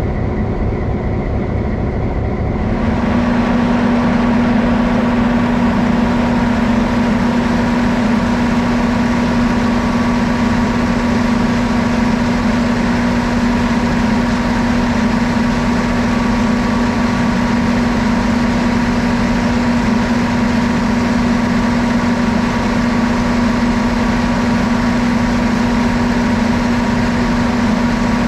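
EMD FP7 diesel-electric locomotives idling: a steady, even engine sound with a strong steady hum, fuller and brighter from about three seconds in.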